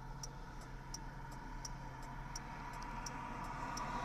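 Steady ticking of a vehicle's indicator flasher, about two to three clicks a second, over the low hum of the vehicle.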